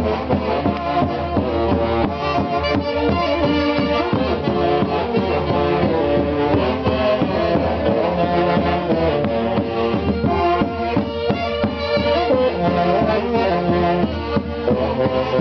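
A band of wind and brass instruments playing a traditional tune, continuous and full throughout.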